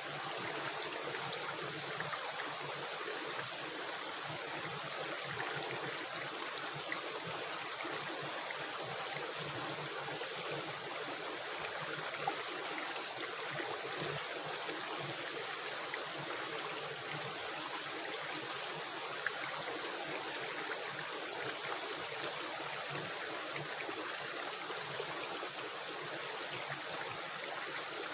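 Running water of a river rushing and gurgling steadily, with a few brief louder splashes.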